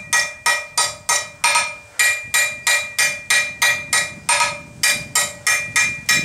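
Hand hammer striking hot steel bar stock on an anvil in a steady rhythm of about three blows a second, the anvil ringing between blows: the reins of a pair of forged bolt-jaw tongs being rounded off.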